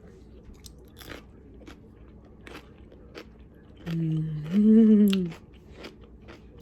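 Crisp crunching and chewing of a homemade Kirby-cucumber bread and butter pickle, still on the crunchy side after a day in brine. About four seconds in, a loud two-part hum of approval from the person chewing.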